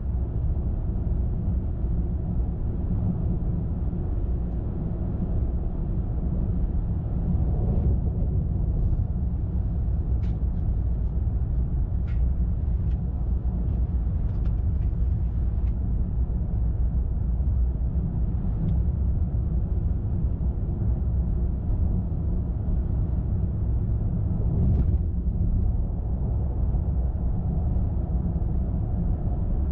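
A moving car's steady low road and engine rumble, with a few faint clicks about a third of the way in and another near the end.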